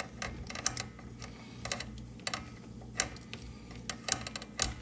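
Light, irregular metallic clicking of a spark-plug socket, extension and universal joint as a new spark plug is turned into the cylinder head by hand, over a low steady hum.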